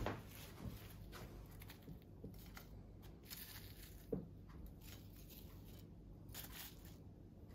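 Faint clicks and rustles of metal tongs lifting chips from a paper-lined bowl onto a plate, with a small knock about four seconds in.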